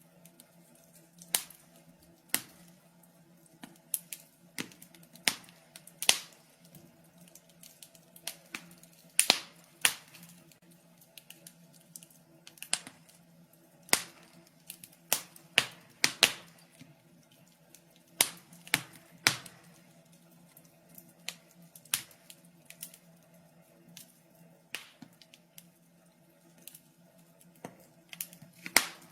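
Wood fire crackling in a fireplace: irregular sharp pops and snaps, sometimes two or three close together, over a faint steady hum.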